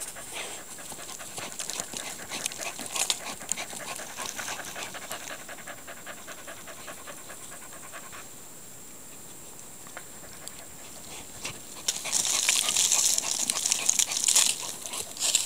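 Standard schnauzer puppy panting rapidly with its nose down in a hole as it digs, paws scrabbling in the soil and grass. The scrabbling gets louder about three-quarters of the way in.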